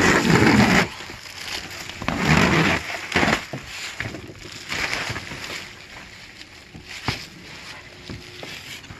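Blue plastic protective film rustling and crinkling as it is peeled and pulled off an acrylic shower base, in two loud bursts near the start and about two seconds in, then softer handling with a few sharp clicks.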